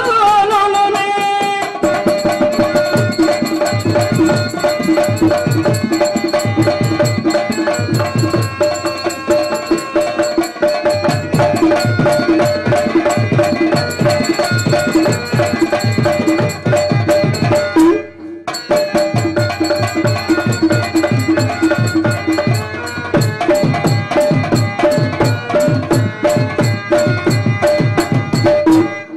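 Instrumental folk music for a stage dance: hand drums keep a steady, repeating rhythm under a sustained held melody. The music breaks off briefly about two-thirds of the way through, then starts again.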